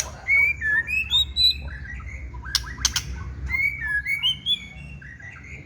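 White-rumped shama (murai batu) singing: a run of clear whistled notes that slide up and down, with a few sharp clicks about two and a half seconds in.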